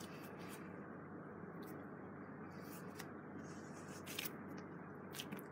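Faint rustles and soft clicks of hands pressing slime onto a squishy toy, over a steady background hiss.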